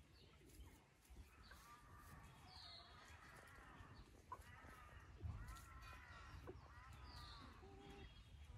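Faint, soft calls from chickens foraging: a string of short, arched, pitched calls through the middle, with a couple of brief high chirps.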